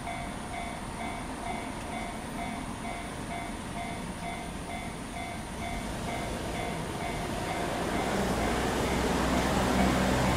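Railroad crossing warning bell ringing over and over at a steady pace over the rumble of a freight train passing the crossing. The rumble swells, with a deep hum, in the last couple of seconds.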